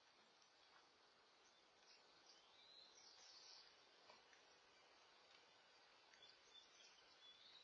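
Near silence: faint outdoor ambience with a few distant bird chirps, about three seconds in and again near the end.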